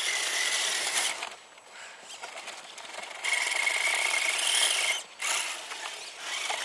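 Radio-controlled scale crawler truck's electric motor and gears whining in two throttle bursts, the first about a second long and the second nearly two seconds, each a steady high whine over a gritty hiss. The truck is hung up on a snowy bank and straining to climb.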